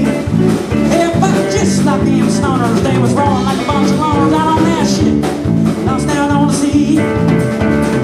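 Live country-rock band playing an instrumental break: electric guitar playing bending lead notes over bass guitar and a steady drum beat.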